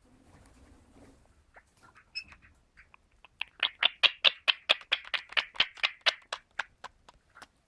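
Indian ringneck parrot giving a fast run of short, sharp calls, about six a second, after a few scattered chirps.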